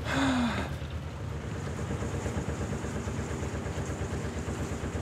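A narrowboat's diesel engine running steadily with an even low beat as the hull pushes through thin sheet ice. A short rasping burst comes right at the start.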